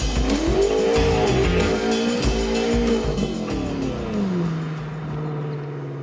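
Music with a steady drum beat, mixed with a car engine revving up and down twice, then dropping to a steady idle about four seconds in.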